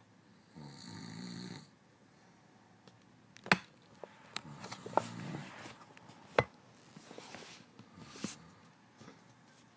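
A sleeping man snoring: one long snore about a second in, then shorter, rougher snores. Several sharp clicks cut through the middle, three of them louder than the snoring.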